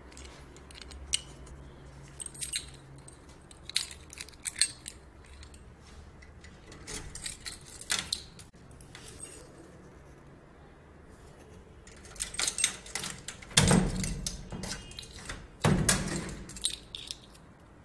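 Metal latch and lock on a wooden door rattling and clicking as a hand works it. Scattered single clicks, with two short bouts of louder rattling near the end.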